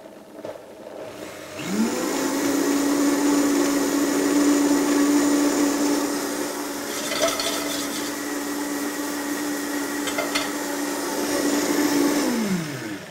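Vitamix blender blending a cashew cream sauce on its final blend. The motor spins up with a rising whine about a second and a half in, holds a steady high-speed whine, and winds down just before the end.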